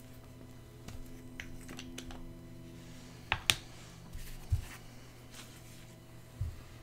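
A few scattered light clicks and taps from handling a metal spoon on a paper napkin, the sharpest about three and a half seconds in, over a faint steady hum.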